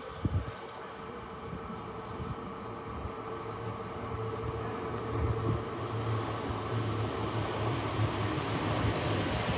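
GWR Class 800 bi-mode train approaching the platform under diesel power, its underfloor engine hum and wheel noise growing steadily louder as it draws near.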